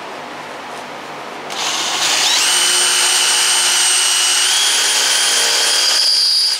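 Cordless drill boring into a broken steel bolt in an exhaust header flange, running quieter at first and getting much louder about a second and a half in. A high, steady squeal from the bit rubbing in the bolt comes in soon after and steps up in pitch partway through: the bit is not cutting well. The sound stops suddenly at the end.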